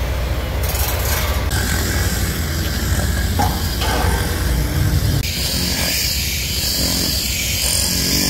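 Outdoor work-site noise from a fence-building job: a steady low engine-like rumble with occasional knocks and clatter of hand tools. It changes abruptly a few times.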